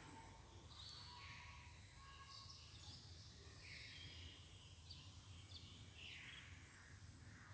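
Faint birds chirping: a string of short calls, several of them sweeping downward, over a low steady rumble.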